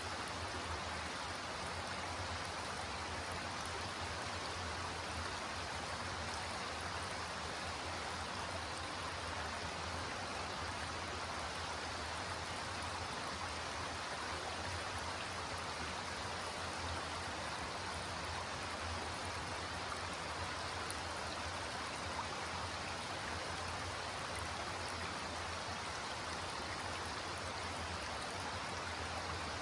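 Shallow creek flowing over flat rock ledges and a small cascade, a steady, unbroken rippling of water.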